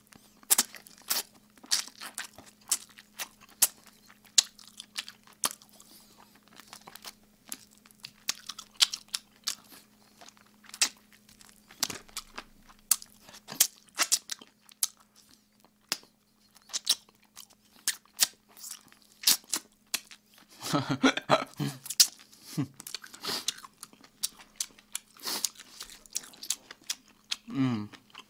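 Close-miked mukbang eating: a man chewing oven-baked chicken drumsticks and wings with loud, exaggerated mouth smacking, in a dense run of irregular wet smacks and clicks. Twice he lets out a brief hum while chewing.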